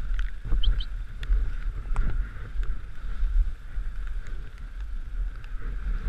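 Dog sled gliding along a packed-snow trail behind a running team: a steady rumble and hiss from the sled on the snow, with wind buffeting the microphone and a few sharp knocks.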